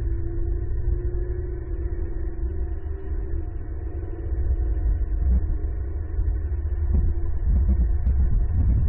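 Low rumble of a vehicle engine on a road, with a steady hum, growing louder about seven seconds in.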